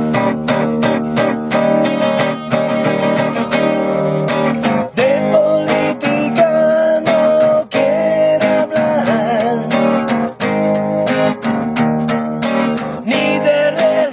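Acoustic guitar strummed in a steady rhythm. A man sings along from about five seconds in.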